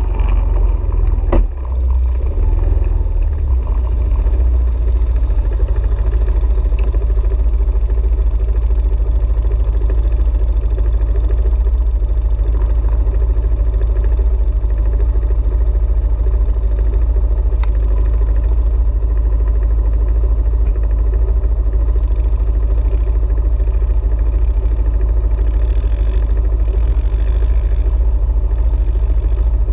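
ATV engine running steadily under way, with a constant low rumble and one sharp knock about a second and a half in.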